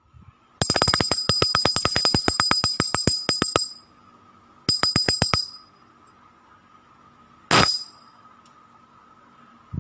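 Maxter Luca 2000SH spinning reel's mechanism clicking with a metallic ring: a fast run of clicks, about ten a second and slowing over some three seconds, then a shorter run and a single click near the end.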